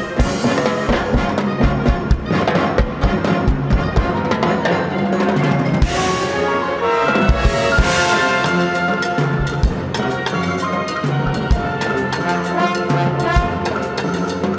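Drum kit played as the solo instrument with a symphonic wind band: drum strokes over held brass and woodwind chords, with two cymbal crashes about six and eight seconds in.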